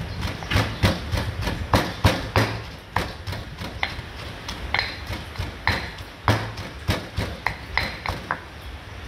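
Stone pestle pounding garlic, coriander root and white pepper in a stone mortar set on a folded towel: a steady run of knocks, about two and a half a second, stopping near the end.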